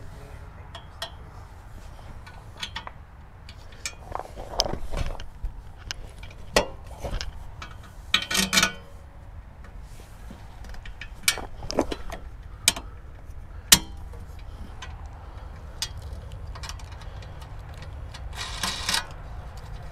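Scattered sharp clicks and short metallic rattles of bolts and knobs being handled and fitted while the handle is mounted on a pressure washer frame, over a low steady background hum.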